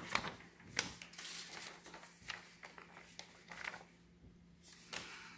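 Handling noise from a smartphone held and moved close to its microphone: scattered taps, knocks and rubbing, over a faint steady hum.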